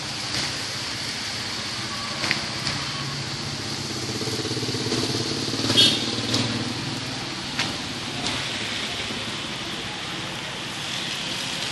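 Steady heavy rain falling on pavement and a roof, with a few sharp drips or taps. A motor vehicle passes on the wet street, swelling and fading between about four and seven seconds in.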